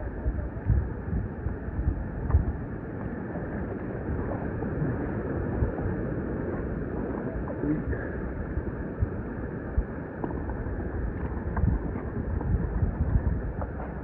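Wind buffeting the microphone in irregular low gusts over a steady rush of surf.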